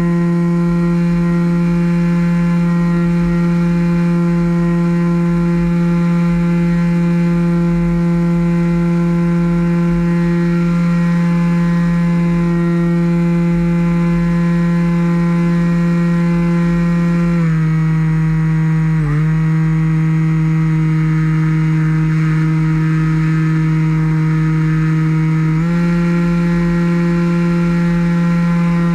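RC model plane's motor and propeller running at steady throttle, a constant buzzing drone, heard close up from a camera on the airframe with wind rumble underneath. The pitch drops a little over halfway through, dips briefly, then climbs back up near the end as the throttle is eased and reopened.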